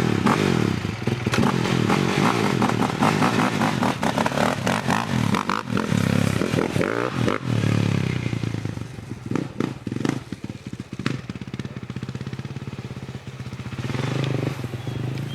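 Small pit bike engine running and revving, its pitch rising and falling. It drops back about eight seconds in, leaving light clicks and rattles, and picks up again near the end.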